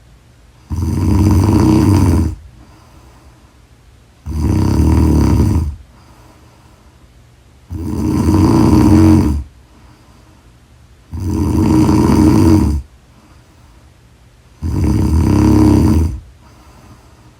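Loud snoring from a sleeping person: five long, rough snores of about a second and a half each, coming every three and a half seconds or so, with quiet breathing between them.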